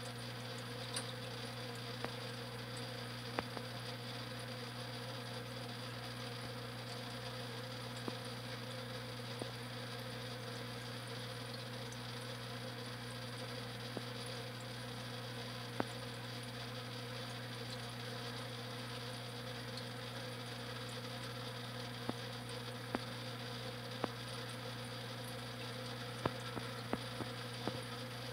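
Steady electrical hum of aquarium pump equipment, with a few sharp clicks scattered through it, more of them near the end.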